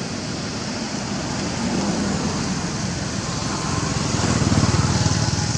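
A motor engine running in the background, swelling louder about four seconds in, over a steady noisy hiss.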